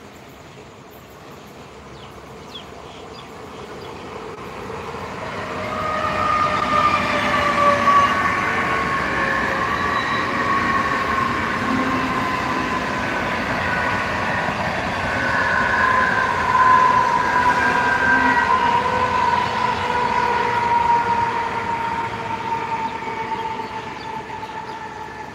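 Mumbai suburban electric local train running past on the adjacent track: a rumble of wheels on rails swells about six seconds in and fades near the end, with a high electric whine that slowly falls in pitch.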